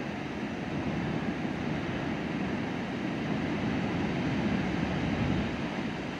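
Wind blowing across the microphone: a steady rushing rumble that swells a little about four to five seconds in.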